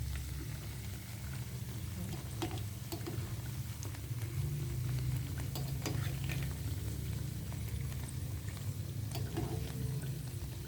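Soybean peyek crackers frying in hot oil, a light sizzle with scattered sharp clicks and crackles, over a steady low hum.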